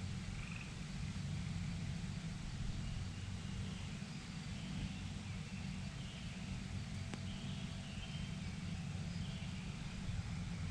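Outdoor pond ambience: a bird calling faintly over and over with short chirps about a second apart, over a steady low rumble on the microphone. One sharp click sounds about seven seconds in.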